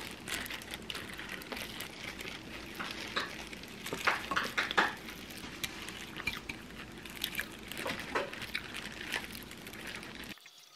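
Boiled whole chicken being torn apart by hand in disposable plastic gloves: wet tearing and squishing of the meat, crinkling of the gloves and small clicks against the ceramic dishes, busiest about four to five seconds in.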